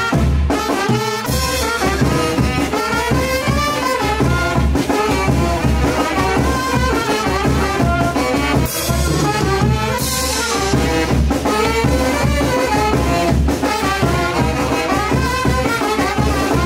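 Brass band music, a melody of horns over a steady low bass, playing without a break.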